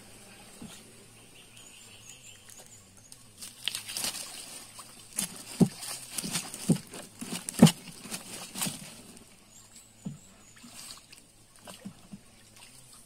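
Water sloshing and splashing around a small wooden canoe as it is paddled and pulled along through branches. From about three and a half to nine seconds in there is a run of sharp knocks, with leaves and twigs rustling.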